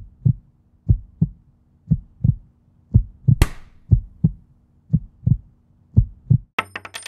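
Cinematic title sound effect: deep double thumps like a heartbeat, about one pair a second, over a faint steady hum. A swoosh comes about three and a half seconds in, and a crackly, glitchy burst starts near the end.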